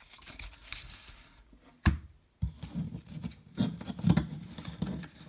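Baseball trading cards handled by hand: the stack rustles and rubs as it is flipped through, one sharp knock comes near two seconds in, and the cards slide and rub against the tabletop after it.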